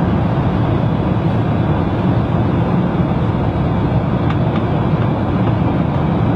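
Steady, loud roar of an airliner cabin, the even rush of engine and airflow noise, with two faint clicks a little past four seconds in.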